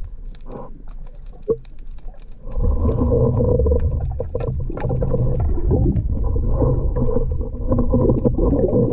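Heard underwater: scattered small clicks, then about two and a half seconds in a loud, steady droning hum with several held tones comes in and continues.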